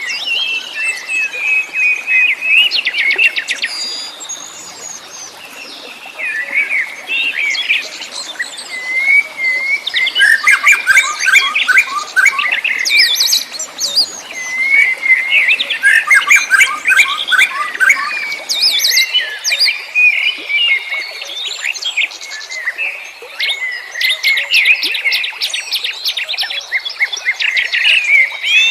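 Several wild songbirds singing and chirping together, overlapping trills, whistled phrases and rapid chirps.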